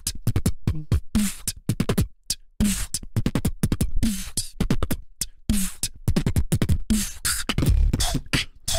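Freestyle beatboxing into a microphone: a fast, dense beat of mouth-made drum sounds with quick kick rolls.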